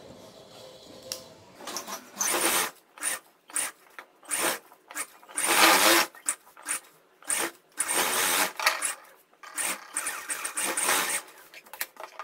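Sewing machine stitching lace along a kurti's neckline in short stop-start runs, the longest about a second, with brief pauses as the fabric is guided under the needle.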